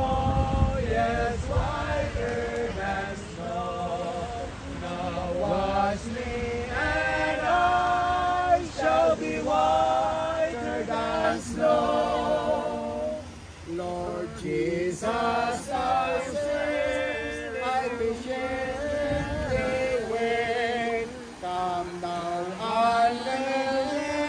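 A group of men and women singing a slow hymn together in long held notes. Gusts of wind rumble on the microphone near the start and again later.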